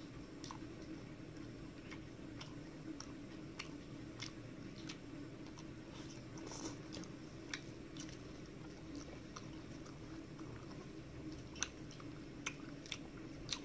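Close-up chewing and wet mouth smacks of someone eating rice, fried fish and curry by hand, with fingers squishing rice on a steel plate. Scattered sharp clicks come throughout, a few louder near the end, over a low steady hum.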